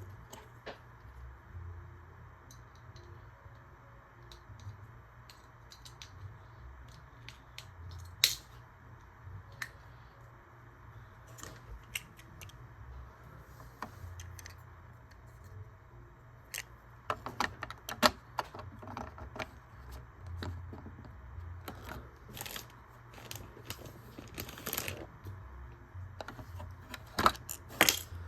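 Small plastic Lego pieces clicking and rattling as they are handled and fitted together: scattered sharp clicks, with louder clusters about two-thirds of the way in and near the end, over a steady low hum.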